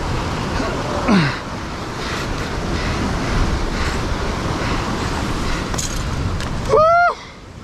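Ocean swell surging and washing over a rock ledge, with wind buffeting the microphone. A short falling cry about a second in, and a loud short cry near the end, after which the noise drops sharply.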